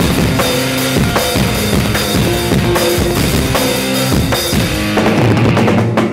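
Rock band music: a drum kit pounding steadily under sustained, changing chords, stopping abruptly at the end.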